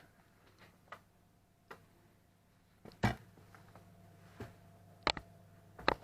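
Scattered sharp knocks and clicks of kitchen utensils and containers being handled while flour is measured out, the loudest about three, five and six seconds in.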